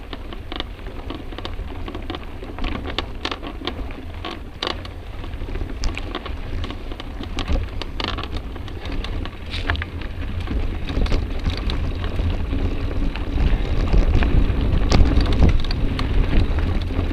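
Mountain bike riding over a dirt singletrack, heard from the rider's camera: tyres on dirt, with frequent sharp clicks and rattles over bumps and a steady low rumble of wind on the microphone. The rumble and overall level grow louder about three-quarters of the way in.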